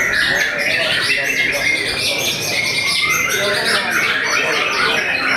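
Several white-rumped shamas (murai batu) singing at once in contest: a dense, unbroken chorus of rapid chirps, trills and whistles.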